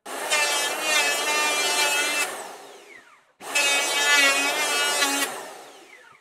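Handheld electric power tool run twice in bursts of about two seconds. Each time it is switched off, its motor winds down with a falling whine.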